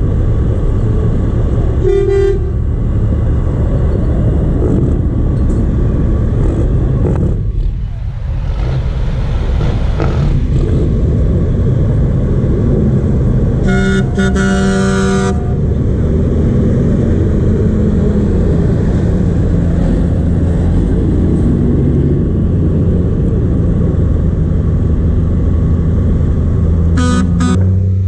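Semi-truck horns sounding over the steady low rumble of big-rig diesel engines: a short blast about two seconds in, a longer blast of about a second and a half around the middle, and a few quick toots near the end as an engine grows louder.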